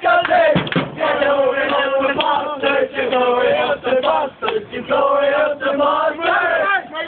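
A group of men chanting and singing a football terrace song together, loud and unpolished, with a few sharp knocks.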